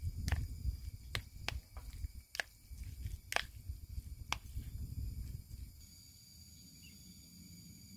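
Metal chopsticks clicking sharply against each other and the bowl as they pick through raw sliced meat, about six clicks spread over the first few seconds, over a low uneven rumble. The rumble fades to a quiet steady background about six seconds in.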